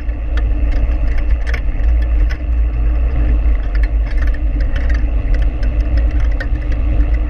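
Mountain bike rolling fast on a dirt road: a steady low rumble of wind on the handlebar-mounted camera's microphone and tyre noise on the gravel, with scattered small ticks and rattles.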